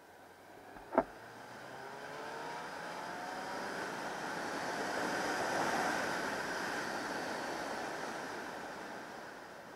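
Motorcycle engine of a 2003 Yamaha YZF600R Thundercat, an inline-four, pulling away with a rising pitch, under wind and road noise. The noise swells to a peak midway and fades toward the end. One sharp click about a second in.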